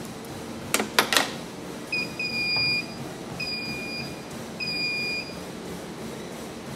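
Matrix treadmill console beeping as the belt is started: one short beep, then three longer beeps on the same pitch about a second apart. A few sharp clicks come just before the beeps.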